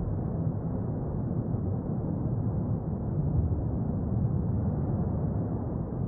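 La Palma volcano erupting: a continuous deep rumble with a slightly wavering loudness and no high sounds above it.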